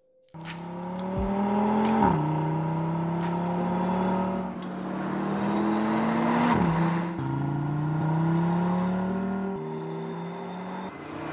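Audi RS3's 2.5-litre turbocharged five-cylinder engine pulling hard under acceleration. The revs climb and drop sharply at an upshift about two seconds in and again about six and a half seconds in. After climbing once more, the note steps down to a steadier pitch near the end.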